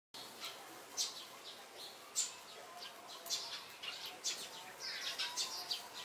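Several sparrows chirping in a steady stream of short, high chirps, a few of them louder than the rest.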